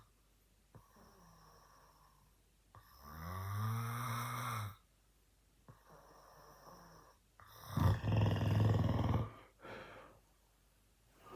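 A man snoring in his sleep. There are two loud, drawn-out snores about four seconds apart, with softer breaths between them. The second snore, in the latter half, is the loudest and rougher.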